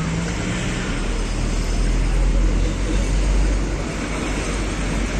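Motorbike engine running as it is ridden, with steady road and traffic noise. A deep low rumble grows stronger about a second in.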